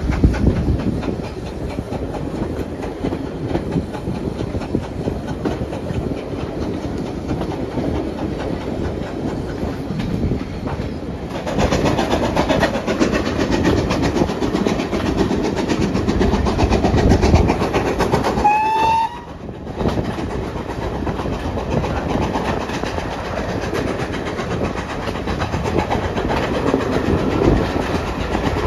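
Heritage steam train's carriages running along the line, heard from an open carriage window, a steady rumble and rattle of wheels on track that grows louder about a third of the way through. About two-thirds in there is a brief whistle note, and the sound drops out for a moment just after it.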